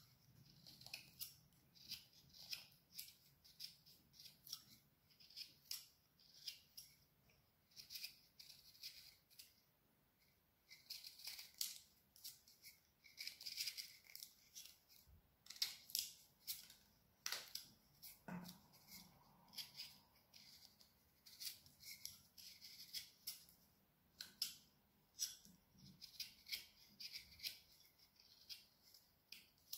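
Hand carving blades, a detail knife and a small gouge, slicing shavings from a barked branch: a run of short, crisp cuts, roughly one or two a second, with brief pauses between bursts.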